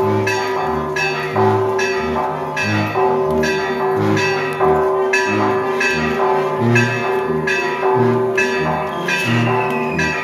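Church bells ringing in a steady rhythm of about two strokes a second, with alternating low and high notes. A faint falling whistle comes in near the end.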